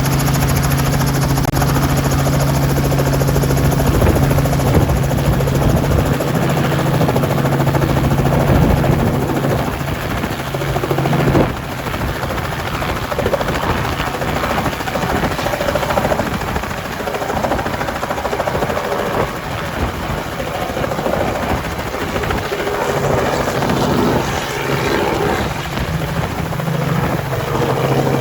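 Robinson R44 Clipper II helicopter running, its piston engine and rotor making a steady low hum. The sound changes abruptly about eleven seconds in.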